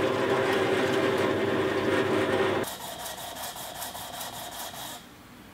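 Drill press running, its bit boring a small hole into the hardwood body of a Japanese hand plane to seat the chip-breaker bar. About two and a half seconds in it gives way to a quieter, rapid back-and-forth scraping of the wooden plane body rubbed on sandpaper, about four to five strokes a second.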